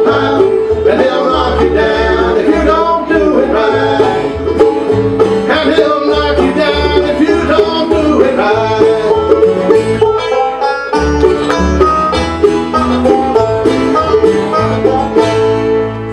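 Bluegrass band playing an instrumental passage of quick plucked acoustic guitar and mandolin over a walking bass line, with no singing.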